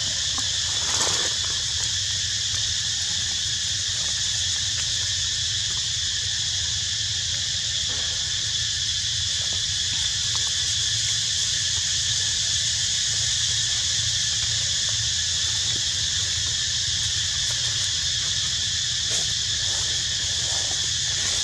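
Steady chorus of insects, a continuous high-pitched buzz that does not change, over a low steady rumble.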